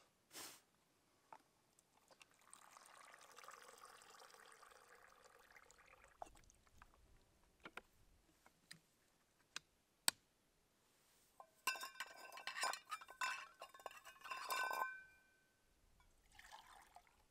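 Water poured from a plastic bottle into a collapsible mug for a few seconds, then a few light clicks. Near the end comes a quick run of clinks and short metallic ringing from a small Toaks titanium pot as water is poured into it from the mug.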